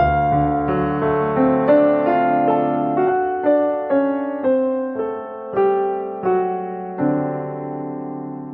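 Background music: slow, gentle piano (electric or acoustic keyboard) playing single notes and chords roughly every half second, with the last chord left to ring and fade near the end.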